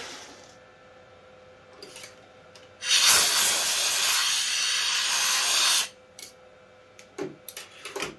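CNC engraving spindle winding down, then a compressed-air blow gun hissing steadily for about three seconds as it blows chips off the freshly chequered wooden part. A few small clicks near the end.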